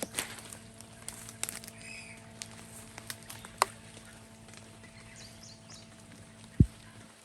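Chickens moving about with a faint chirp, scattered light taps and clicks, and one dull thump near the end, over a steady low hum.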